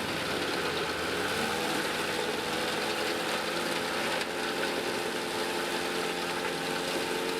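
Tractor-driven mobile wood chipper running with a steady, even engine drone that holds its pitch.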